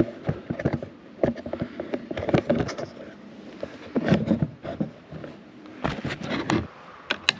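An irregular run of knocks, clinks and light scrapes from metal hardware being handled, bunched in clusters about 2, 4 and 6 seconds in.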